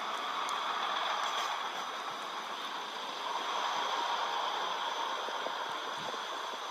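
First Great Western Class 158 diesel multiple unit moving along the platform, its engine and transmission giving a steady whine that drifts a little in pitch. The sound is thin and without bass, as if heard through a television's speaker.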